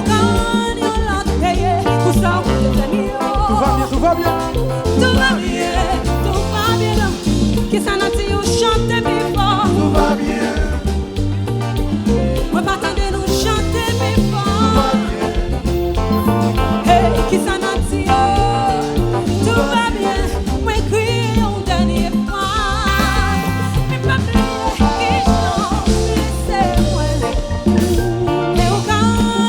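Live Haitian konpa band playing, with a steady beat and a melodic lead line over it.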